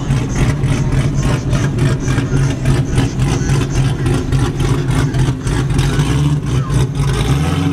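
A C6 Corvette's V8 idles and rumbles through its exhaust as the car rolls past at walking pace. The low, rapidly pulsing exhaust note stays steady and loud.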